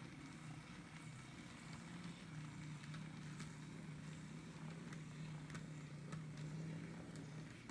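N scale Atlas CN GP40 model locomotive's electric motor humming steadily as it runs slowly along the track, with scattered light clicks; the hum stops near the end as the locomotive halts.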